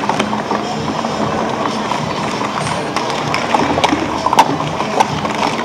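Plastic sport-stacking cups clacking quickly and irregularly against each other and the stack mat as they are stacked up and brought down, over the steady din of a busy hall.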